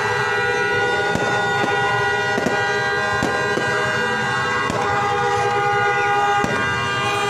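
New Year's Eve firecrackers and fireworks going off in irregular sharp bangs, about one every half second to a second, over a continuous blare of horns held on several pitches at once.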